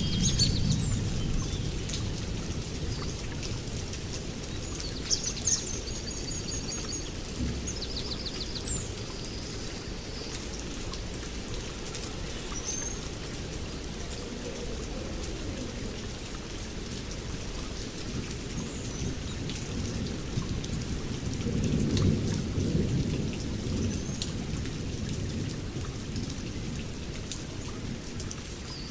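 Steady rain with a low rumbling that swells about two-thirds of the way through. Small birds chirp now and then, mostly in the first third.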